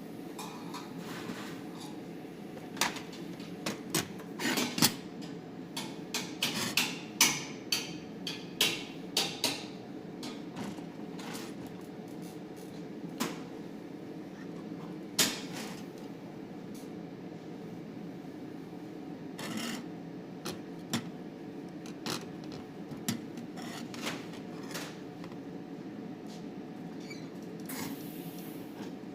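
Irregular sharp clicks and light metallic knocks from sheet-metal workpieces and welding gear being worked at a bench, over a steady machine hum. The clicks come in a busy cluster early on, then only now and then.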